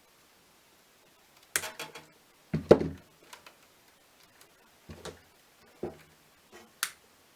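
Handling noises: a series of sharp knocks and clunks as hard objects are picked up and set down, the loudest about a third of the way in, with quieter clicks between.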